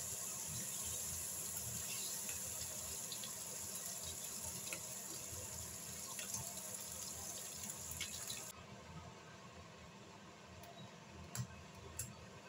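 Bacon strips frying in a nonstick pan: a steady high sizzle with scattered small pops. The sizzle cuts off sharply about two-thirds of the way through, leaving a faint hiss with a couple of sharp ticks near the end.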